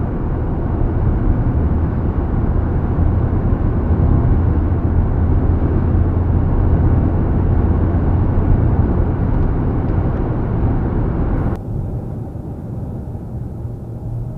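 Steady road and engine noise inside the cabin of a Mitsubishi Xpander cruising at about 100 km/h: a deep, even drone with no wind whistle, now that the door gaps are sealed with rubber door seals. About three seconds before the end the noise drops abruptly to a quieter level.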